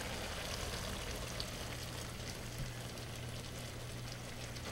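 Chicken breasts in a wine and butter pan sauce sizzling and simmering in a skillet while lemon juice is poured in, with a few faint pops and a steady low hum underneath.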